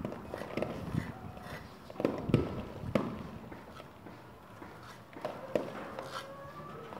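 Scattered knocks and taps from hand plastering work on a cement cornice molding on wooden scaffolding, the loudest about two to three seconds in.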